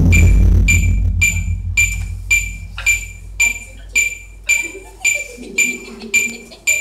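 Taiko drums ringing out and dying away after the final stroke, the deep tone fading over the first couple of seconds. Then a steady high metallic click, about two a second, keeps time.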